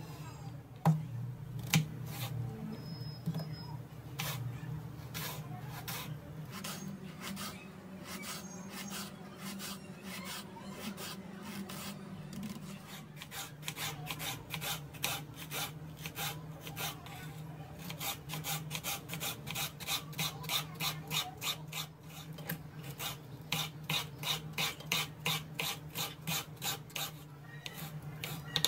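Kitchen knife chopping vegetables on a bamboo cutting board: repeated knife strikes, sparser at first, then a quick regular run of about three a second from about halfway. A low steady hum runs underneath.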